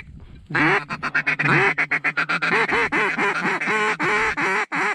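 Mallard duck call blown close to the microphone: a single quack, then about half a second in a long, fast run of quacks and chatter over a steady low drone, calling to ducks coming in to the decoys.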